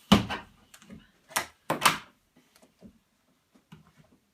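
A flat board or work surface being set down and handled on a table: a sharp knock right at the start, two more knocks close together about a second and a half in, then a few light ticks and taps.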